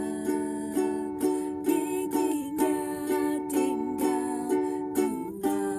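Ukulele strummed in a three-beat waltz pattern, about two strums a second, moving between G major and D major chords.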